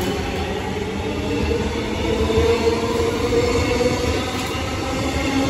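Melbourne Metro High Capacity Metro Train (electric multiple unit) passing close by, with a steady electric hum over the rumble of wheels on rail.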